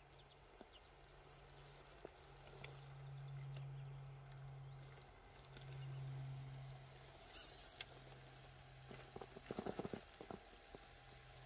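RC crawler's electric motor and drivetrain humming in several bursts as the throttle is fed on and off. A quick cluster of clicks and scrabbling comes near the end.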